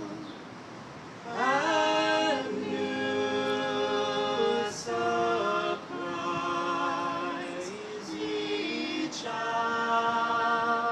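Three voices, a woman and two men, singing a cappella together from printed music, in long held notes that change pitch in steps; the singing grows louder about a second and a half in.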